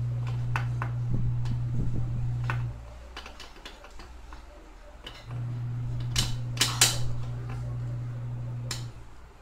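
Metal hand tool clicking and tapping on a bicycle's headset and stem while the fork is being fitted: a handful of sharp separate clicks, the loudest bunched about six to seven seconds in. A low steady hum runs for the first few seconds, stops, and starts again about five seconds in.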